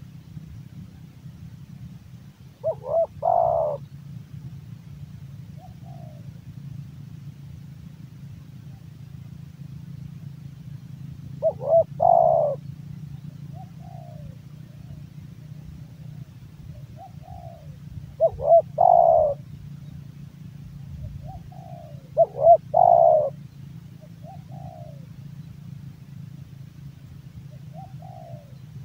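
Deep-voiced male spotted dove cooing: four loud phrases, each a quick stutter of notes running into a longer coo, with softer short coos between them. A low steady hum lies underneath.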